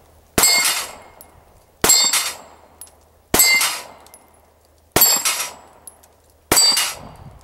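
Five shots from a Kahr PM9 9mm pistol, about a second and a half apart, each followed at once by the clang and ring of a steel plate target being hit.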